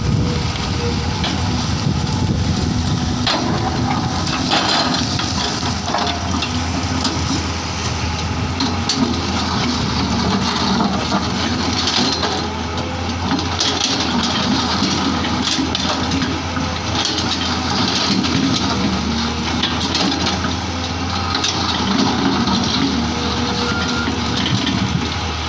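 Diesel engine of a digging machine running steadily, with crunching and crackling of soil and stones as the bucket loads.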